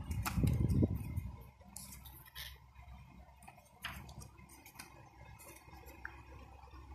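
Paper pages of a CD lyric booklet being handled and turned: soft rustles and light flicks of paper, with a louder stretch of handling in the first second.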